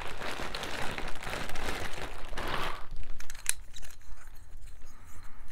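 Clear plastic bag crinkling and rustling as it is handled for about three seconds, then quieter with a few sharp clicks.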